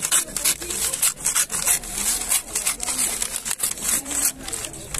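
A small knife sawing through brown kraft paper in quick, repeated back-and-forth strokes, giving a rough papery rasp.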